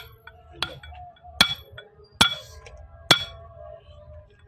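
Four ringing metal-on-metal hammer blows, about one every 0.8 s, driving a part into place on a sugarcane juicer after it has been centred.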